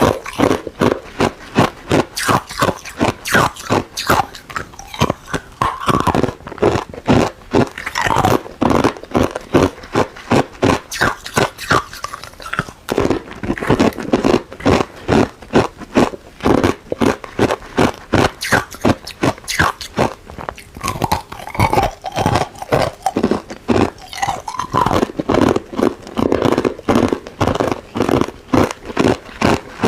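Close-up crunching of ice being bitten and chewed, a steady run of sharp crunches about two to three a second.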